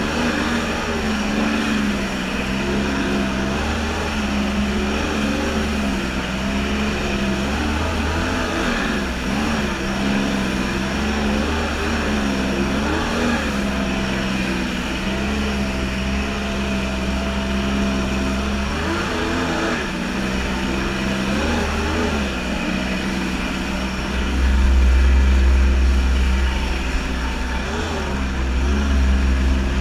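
Stand-up jet ski engine running at speed, its pitch rising and falling as the throttle changes, over the rush of water spray and wind on the microphone. A heavier low rumble swells in twice in the later part.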